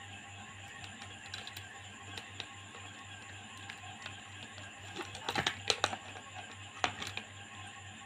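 Faint small clicks and taps of plastic multimeter test probes and leads being handled against a clamp meter, bunched together about five seconds in and once more near seven seconds, over a steady low hum.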